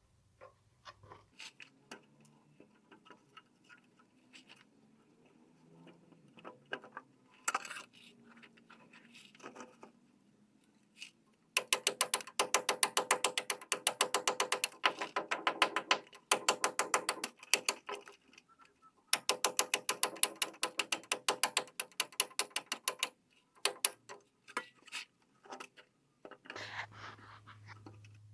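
Scattered clicks and taps, then two runs of rapid, even rasping strokes, about ten a second and roughly four seconds each, with a pause between: hand-tool work on PVC plumbing.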